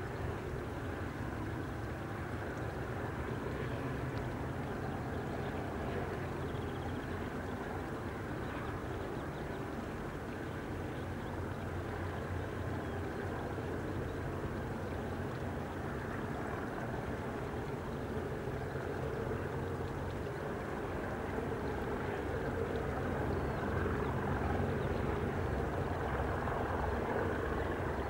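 Distant Class 37 diesel locomotive engine working, a steady low rumble that grows slowly louder over the last several seconds.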